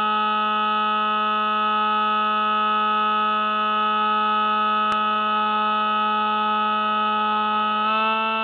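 Electric motor and propeller of a Spy Hawk RC plane, picked up by its onboard camera, giving a steady buzzing drone. Its pitch steps up slightly near the end as the throttle changes.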